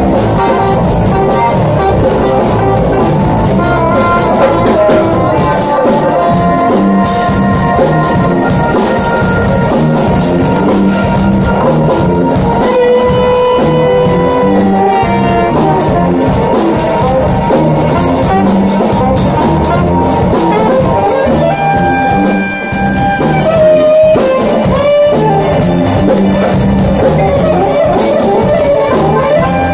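Live jazz band playing: alto saxophone melody over electric keyboard, bass and drum kit.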